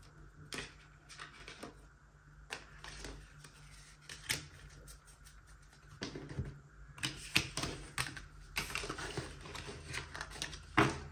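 Tarot cards handled on a tabletop: irregular light clicks and taps of card stock as cards are drawn, laid down and gathered up. The clicks come thicker after about seven seconds, with one louder snap near the end.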